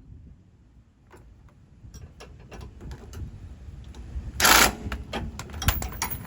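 Irregular clicks and knocks from hand tools working on the sway bar bushing hardware of a Chevy Suburban, getting busier after the first second, with one short, louder rushing noise about four and a half seconds in.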